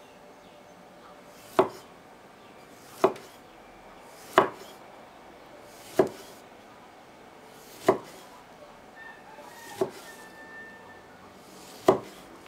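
A large kitchen knife chopping through whole guavas onto a wooden chopping board: seven sharp, separate chops, about one every one and a half to two seconds, each a knock of the blade on the wood.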